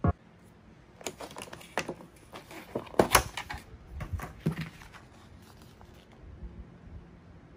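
Plastic food trays and a clear plastic clamshell pack being handled and moved on a table: irregular light clicks and crinkles, loudest about three seconds in, then quieter.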